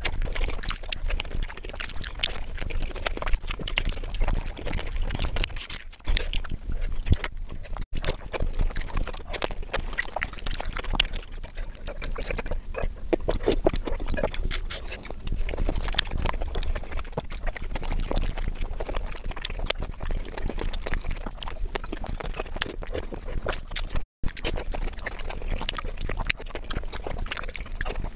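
Close-miked chewing of steamed momos (dumplings): a dense, continuous run of mouth clicks, with the sound cutting out briefly twice.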